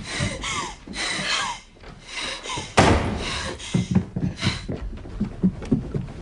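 A raised voice for the first second or so, then a loud slam about three seconds in, followed by scattered lighter knocks and thuds.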